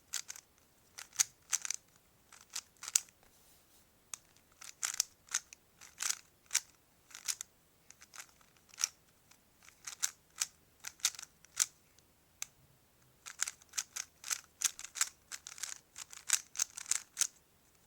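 3x3 Rubik's Cube being twisted by hand: quick plastic clicks and clacks of its layers turning, in runs of rapid turns with short pauses, as a move sequence is repeated over and over.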